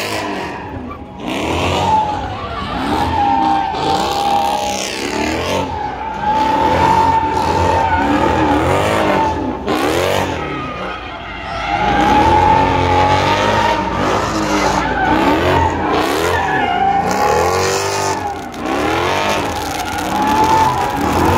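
A car doing donuts: its tyres squeal in a wavering high tone while the engine revs up and down over and over.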